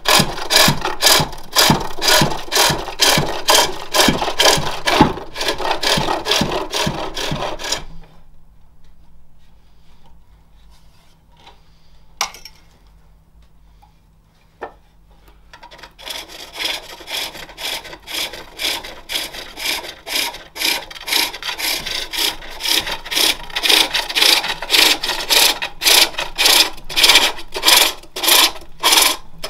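Gouge shaving the face of a jacaranda plate turning on a spring pole lathe: a rhythmic scraping cut with each stroke of the pole and treadle, about two a second. The cutting stops about a quarter of the way in, leaving a few light knocks, and resumes just past the middle.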